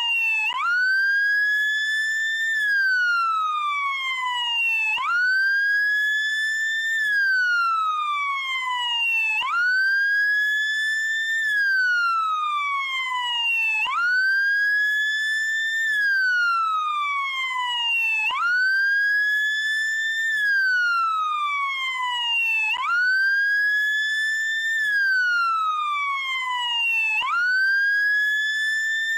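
American police car siren on the wail setting: a single tone that shoots up in pitch, climbs a little more, then slides slowly back down, repeating about every four and a half seconds.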